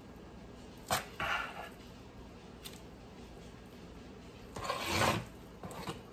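A spoon scraping thick, wet cornbread dressing out of a mixing bowl and dropping it into a baking dish: a click about a second in, then a few short scrapes, the longest about five seconds in.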